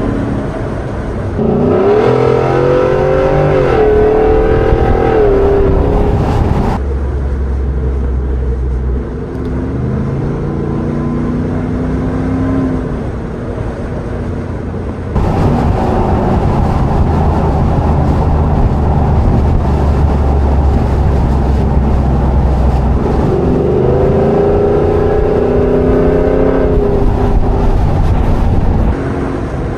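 Ford F-150 Tremor's 5.0 Coyote V8 running through open exhaust cutout valves, accelerating hard with the pitch climbing about a second and a half in and again near the end, with steadier cruising between. Wind and road noise rush over it.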